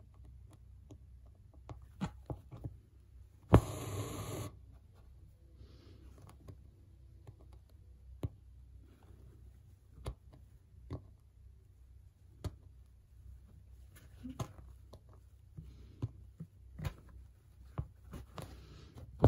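Hand embroidery on a cap held in a wooden hoop: soft scattered ticks and pops of the needle piercing the fabric and the floss being drawn through. About three and a half seconds in comes a sharper click followed by about a second of rustling.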